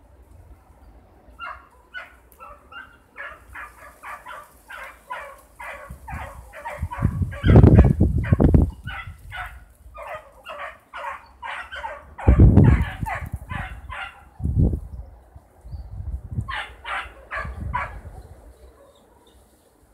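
Young beagle hounds baying in a fast run of short yelping barks, two or three a second, as hounds give tongue on a scent. They pause for about two seconds, then give a short further burst near the end. A few loud, dull low thumps come in the middle.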